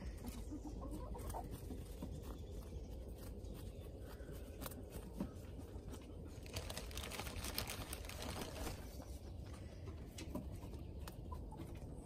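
Chickens clucking faintly, with soft crisp crunches of a rabbit chewing a carrot, thickest about six to nine seconds in.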